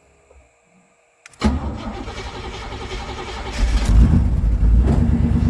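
Pontiac Trans Am's 305 Cross-Fire V8 starting about a second and a half in, then running, louder and revving up about two seconds later.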